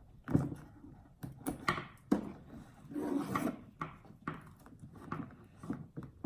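Rustling and light clicks of a leather belt bag and its strap being handled while it is put on, in irregular short bursts.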